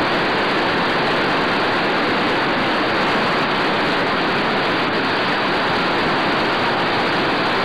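A steady, even rushing noise that does not change or break, strongest in the middle range.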